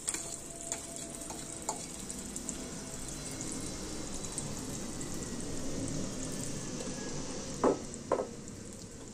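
Beaten egg mixed with chopped tomato, onion and capsicum frying in oil in a hot pan, a steady sizzle. Two sharp knocks come near the end.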